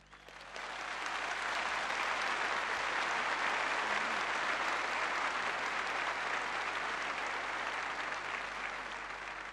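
Large crowd applauding. The applause swells in over the first second, holds steady, and fades near the end.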